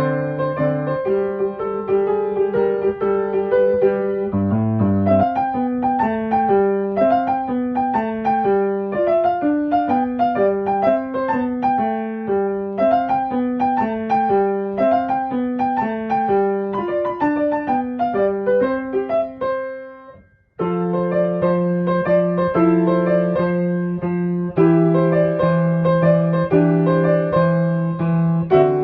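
Background piano music playing a gentle melody. It fades out about two-thirds of the way through and, after a brief moment of silence, starts again.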